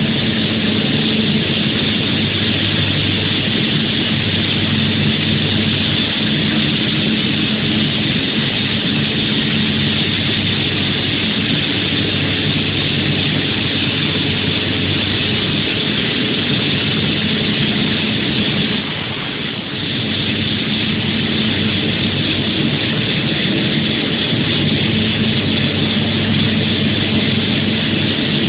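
ANT ADS-15RS hydraulic rock saw cutting rock: a loud, steady machine noise, a constant low hum under a dense hissing grind. It eases for about a second two-thirds of the way through, then picks back up.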